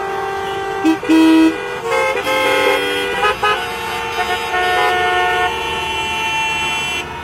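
Many vehicle horns honking at once in stopped traffic, steady overlapping tones starting and stopping over each other, with one loud, lower horn blast about a second in. The din falls off just before the end.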